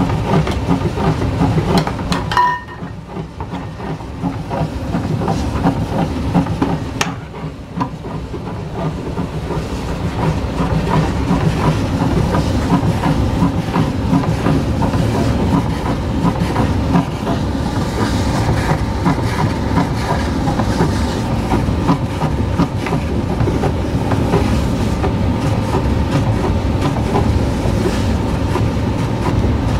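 Batch ice cream freezer running: a steady, rattling mechanical noise that drops quieter for several seconds about two and a half seconds in, then builds back up.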